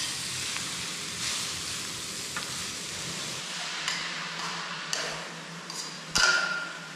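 Food stir-frying in a pot: a steady sizzle, with a utensil scraping and knocking against the pot as it is stirred. The loudest knock comes about six seconds in.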